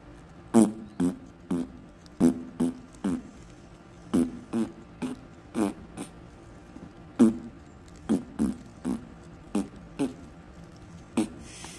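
Fart noises, about eighteen short pitched toots in bunches of two or three, each dying away quickly: a joke soundtrack for a wolf fart puffball being poked with a stick. A real puffball puffs out its spores without any such sound.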